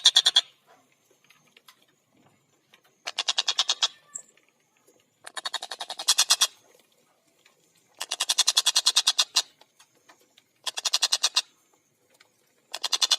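Collared kingfisher (tengkek buto) giving its loud rattling 'kek-kek-kek' call: rapid series of sharp, evenly spaced notes at about a dozen a second. Each series lasts about one to one and a half seconds, with short pauses between; a series ends just after the start, five more follow, and the last runs on past the end.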